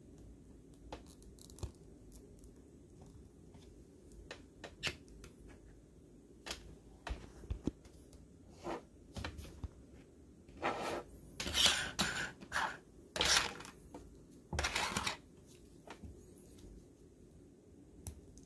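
Plastic action figures, stands and small weapon accessories being handled: scattered light clicks and taps, with a few longer, louder scraping sounds between about ten and fifteen seconds in.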